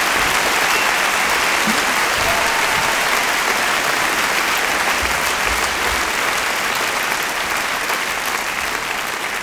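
A large audience applauding, a dense steady clapping that slowly starts to fade near the end.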